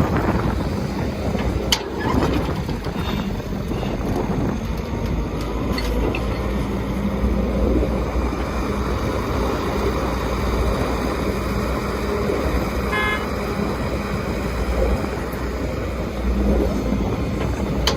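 Diesel engines of heavy construction machinery, excavator and trucks, running steadily with a low rumble, with a few sharp knocks and one brief beep about 13 seconds in.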